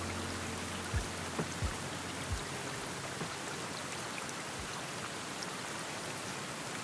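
Steady rain falling, an even hiss with a few low thumps in the first couple of seconds and one more later on. The last held low notes of a music track fade out in the first two seconds.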